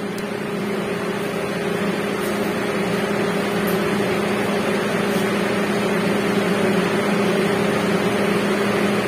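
Steady machine hum: a low droning tone with a higher overtone over a noisy rush, slowly growing a little louder.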